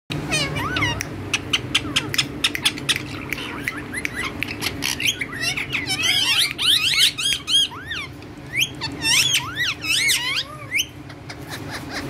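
Indian ringneck parakeets calling: a fast run of short, sharp chirps, then quick swooping squawks and chatter from about halfway, over a steady low hum.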